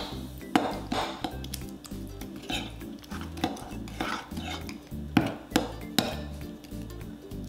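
Metal spoon clinking and scraping against a ceramic bowl while stirring a thick, dark marinade, with irregular clinks about two a second.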